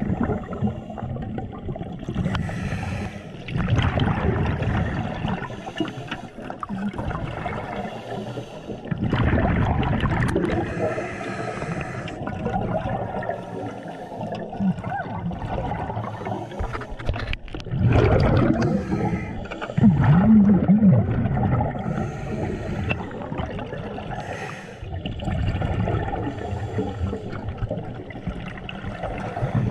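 Underwater gurgling and bubbling from a scuba diver's regulator exhaust, surging every several seconds as the diver breathes out.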